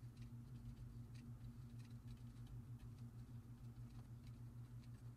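Near silence: a steady low electrical hum, with faint scattered light ticks of a stylus tapping and stroking on a graphics tablet.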